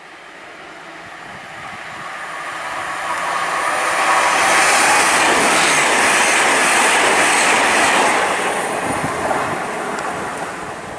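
A passenger train passing on the main line: the rush of wheels and air builds for about four seconds, stays loud for about four seconds as the coaches go by, then fades away.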